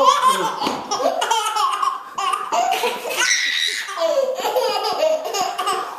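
A baby laughing hard, a run of belly laughs one after another.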